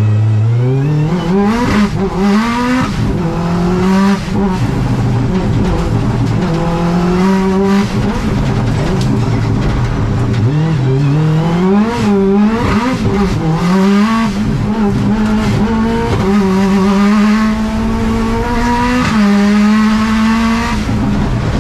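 Subaru rally car's flat-four engine at racing pace, heard inside the stripped cockpit: revs climb again and again through quick upshifts, rise and fall sharply several times around the middle, then hold high as the car reaches speed near the end.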